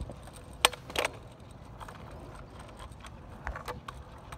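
Two sharp clicks close together about a second in, then a few lighter ticks near the end, over a faint steady outdoor background.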